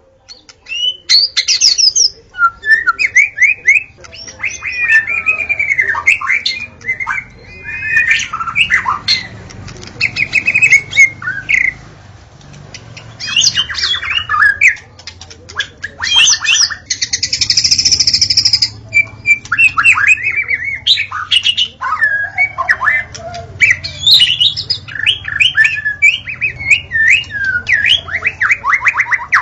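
White-rumped shama (murai batu) singing a long, varied song of rich whistles, quick trills, sweeping notes and chatter, with a harsh buzzing note of about two seconds near the middle.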